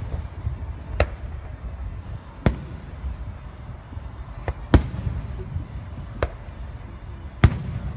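Aerial fireworks shells bursting: about six sharp booms a second or two apart, the loudest about halfway through, over a low steady rumble.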